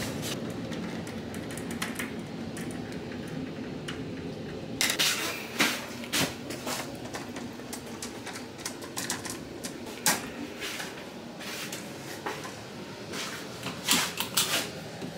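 Window blinds being opened, the slats clicking and clattering in several bursts, busiest about five seconds in and again near the end, over a steady low hum.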